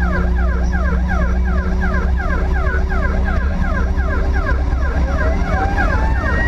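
Emergency vehicle siren on a fast yelp, sweeping up and down about four times a second, over a steady engine drone. About five seconds in, a second siren tone begins a slow rising wail.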